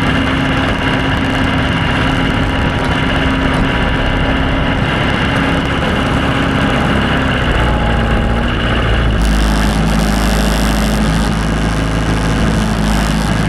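Engine of a snow-plowing vehicle running steadily while clearing snow. About nine seconds in, the sound changes to a deeper rumble with added hiss.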